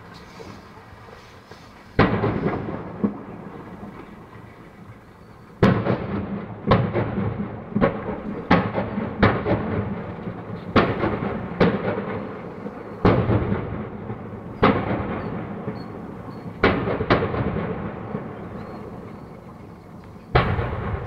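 A rapid series of explosions from a burning warehouse fire, more than a dozen heavy bangs, each trailing off in a rolling rumble. One comes about two seconds in, then a dense run of blasts every half second to second and a half, and one more near the end.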